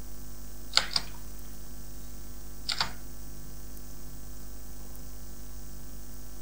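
A few short, sharp clicks at a computer, a close pair about a second in and another pair near three seconds, over a steady electrical hum with light hiss.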